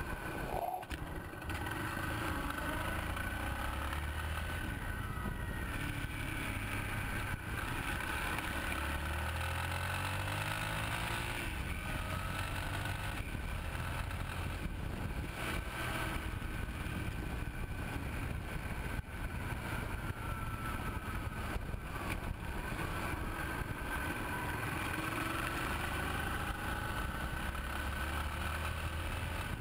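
Yamaha Ténéré 250 motorcycle riding along asphalt, its single-cylinder four-stroke engine running over steady wind and road noise. The engine note rises as it accelerates about ten seconds in, and again near the end.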